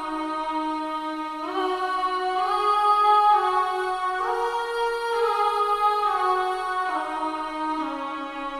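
Sampled vocal 'aah' pad played in a software sampler, holding slow sustained chords. The notes glide smoothly into each new chord about every second and a half.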